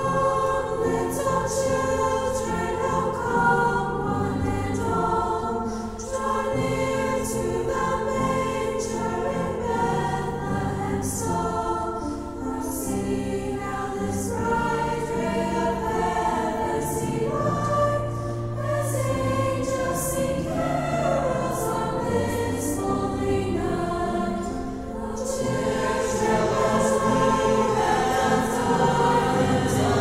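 High school choir singing a holiday choral piece in parts, with sustained harmonised chords.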